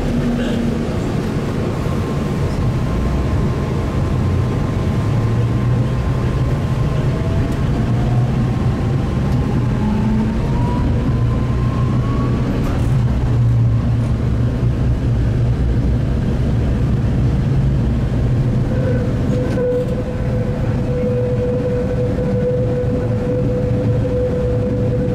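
Tatra T3 tram under way: a steady low rumble of wheels on rail, with the traction motors' whine rising in pitch as the tram speeds up in the first half, and a steady whine holding near the end.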